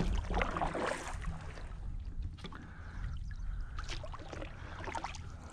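Kayak paddle strokes, the double-bladed paddle's blades dipping and splashing in calm creek water, over a low steady rumble.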